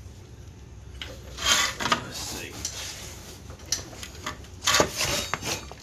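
Metal tools and parts clinking and rattling as they are shoved aside, in two short bouts of clatter over a low steady hum.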